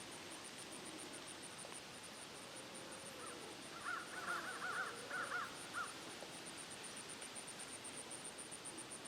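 A bird gives a quick series of short calls for about two and a half seconds, starting about three seconds in. Underneath is a faint steady hiss and a fast, even, high-pitched ticking.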